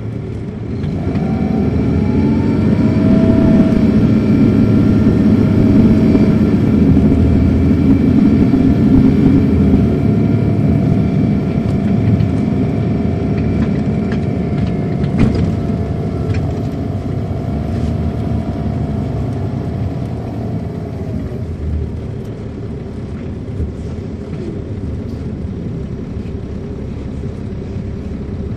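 Heard from inside a 2007 MCI D4500CL coach, its Caterpillar C13 diesel engine pulls loudly under acceleration from about a second in, with a steady whine over the low rumble. The whine falls away after about twenty seconds and the engine sound eases to a lower level.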